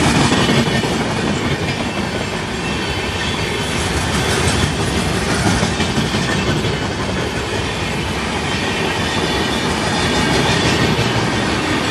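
Diesel-hauled passenger train running at speed, a steady, even noise with no horn sounding.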